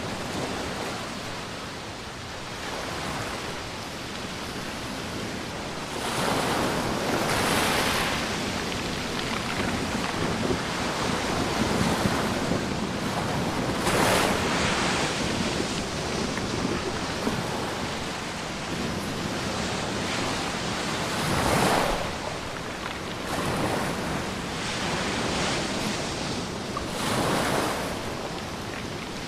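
Sea surf washing onto a sandy beach, surging louder every several seconds, with wind buffeting the microphone.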